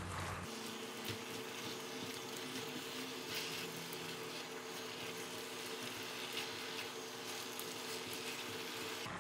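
Faint stir-frying in a stainless steel wok: tofu skin and black fungus sizzling lightly while a silicone spatula tosses and scrapes them, with many small soft scrapes and clicks over a faint steady hum.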